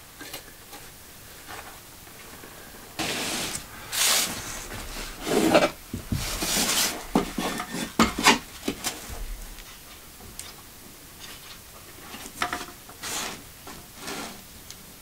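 Irregular scraping and rubbing on an OSB sheet in short bursts with pauses between, as a circular saw is handled and set against the board's edge.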